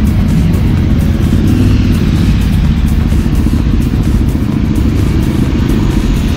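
A file of motorcycles, mostly cruisers, riding past one after another, their engines making a steady, deep sound that does not let up.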